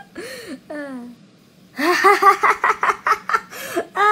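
A man laughing heartily in quick repeated ha-ha pulses, starting about two seconds in after a short vocal sound and a brief pause.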